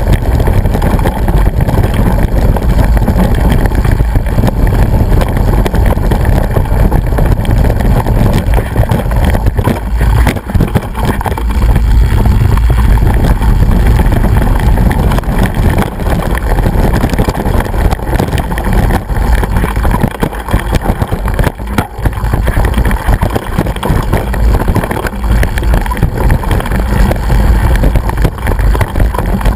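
Heavy wind and handling rumble on a mountain bike's action-camera microphone while riding over a rough, stony track, with frequent short rattles and knocks from the bike jolting on the stones.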